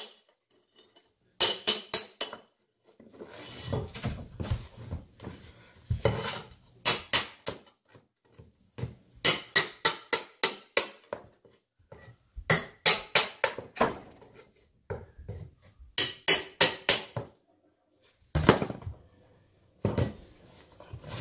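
Claw hammer tapping in quick runs of four to six sharp metallic blows as it is worked under wooden carpet tack strips, with duller scraping and prying sounds between the runs as the strips are pulled up off the subfloor.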